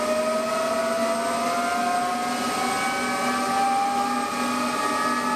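Military helicopter's turbine engine whining, the pitch climbing slowly and steadily as the engine spools up at start-up, with the rotor blades turning.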